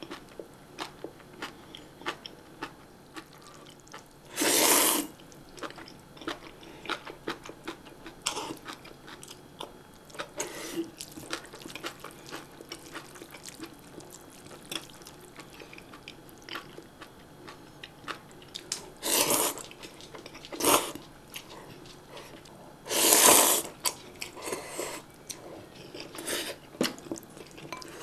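Close-miked eating sounds: a mouth chewing and crunching spicy cabbage kimchi and ramen noodles, a steady run of small wet clicks and crunches. Four louder half-second bursts of noise break through, the loudest about two-thirds of the way in.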